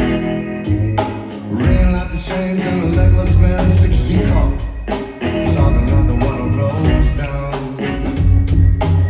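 Live band music with heavy bass and a steady drum beat.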